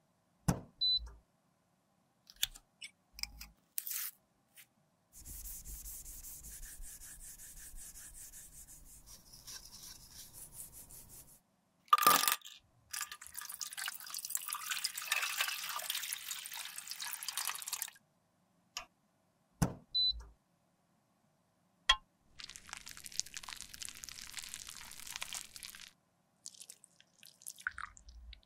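Liquid alcohol poured in a stream into a stainless steel tray over lipstick tubes, splashing steadily for several seconds after a sharp clack. Scattered clicks and taps of handling, and other stretches of soft hiss, come before and after.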